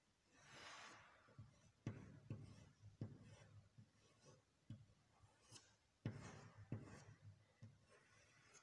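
Chalk drawing lines on a chalkboard: faint scratching strokes, with several sharp taps as the chalk meets the board, the loudest about two and six seconds in.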